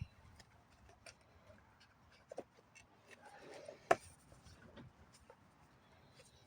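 Faint scattered clicks and light taps of a screw, hand tools and plastic parts being handled as a cut-off saw is fitted back together, with one sharp click about four seconds in.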